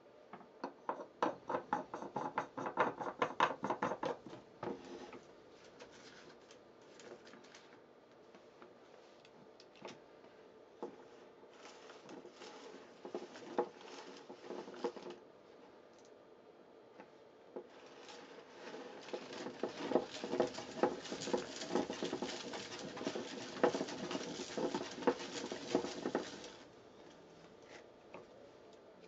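Plastic clicking and rattling as the parts of a Russian 16-35-100PRO film-developing double spiral are fitted and turned by hand. A quick run of clicks comes in the first few seconds, scattered clicks follow, and a longer run of clicking and rattling comes in the second half.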